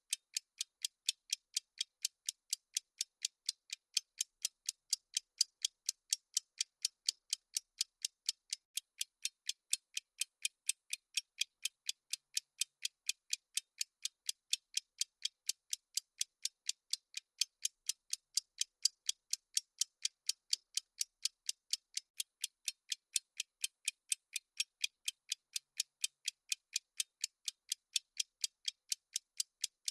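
Clock ticking sound effect of a countdown timer: crisp, high-pitched ticks at a steady rate of roughly two or three a second.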